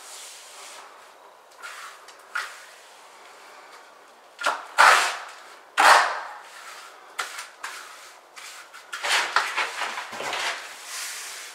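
Hand trowel scraping and spreading wet mortar for a shower-pan mortar bed: a series of short, rasping scrapes. The loudest come about five and six seconds in, and a quicker run of scrapes follows near the end.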